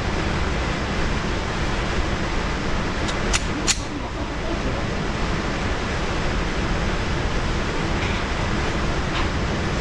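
Steady loud rushing noise, with two sharp clicks close together about three and a half seconds in.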